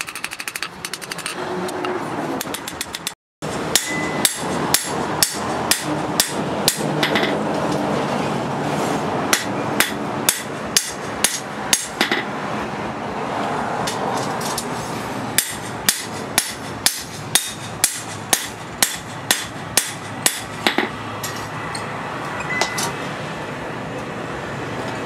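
Hand hammer striking a spring-steel sword blade on an anvil: sharp metallic blows, about one or two a second, in runs with short pauses between them.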